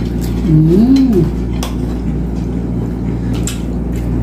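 Forks and spoons clinking and scraping on plates during a meal, in scattered light clicks, over a steady low hum. About half a second in, a short hummed voice sound rises and falls in pitch.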